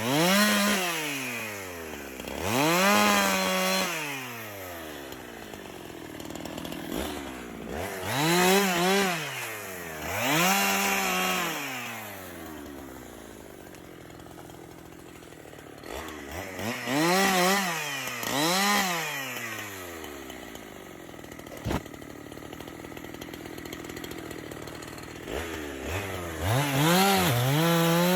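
Two-stroke chainsaw revved in repeated bursts, each rising to full speed and falling back toward idle over a second or two, with quieter idling between. Near the end it holds at high revs.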